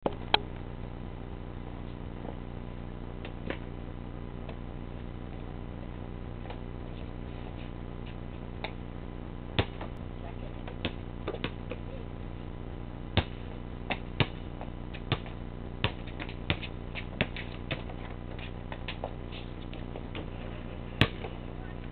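Basketball bouncing on a concrete court: scattered sharp thuds, then a run of dribbles about one and a half a second from about halfway on, with one loud bang near the end. A steady low hum runs underneath.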